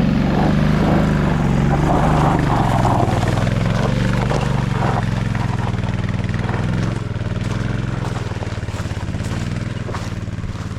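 Motorcycle engine running hard under throttle with a steady, even pitch, easing back a little about seven seconds in.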